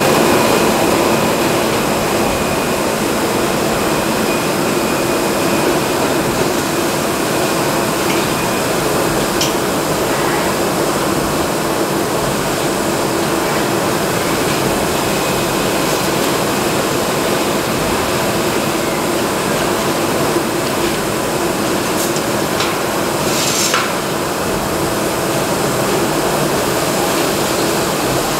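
Steady hum and hiss of running machinery and air handling in an electronics (SMT flex-PCB) assembly factory, with a few light clicks scattered through.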